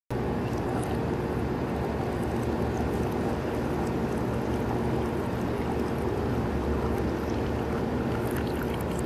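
Tea pouring from a porcelain teapot into a tea bowl in one long, unbroken stream, a steady splashing with a heavy low rumble underneath.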